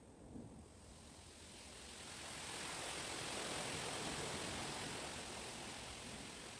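A gust of wind rushing through the leaves of chestnut trees. It swells over a couple of seconds and then eases off toward the end.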